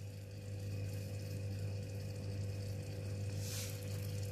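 A steady low hum, with faint bubbling from a tomato beef curry simmering in an open pressure cooker. A brief soft hiss about three and a half seconds in.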